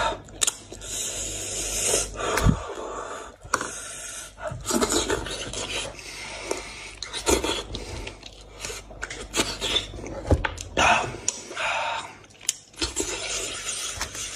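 Close-up eating sounds: wet chewing and mouth noises while meat is torn off a boiled goat's head by hand, with scattered sharp clicks and knocks.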